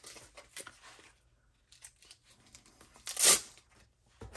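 A heavy-duty hook-and-loop (Velcro) strip being pulled apart, a short ripping rasp a little after three seconds in, with faint rustling and handling of the pieces before it.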